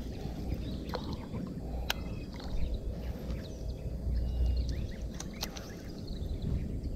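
Wind rumbling on the microphone, with a few sharp clicks and faint bird chirps.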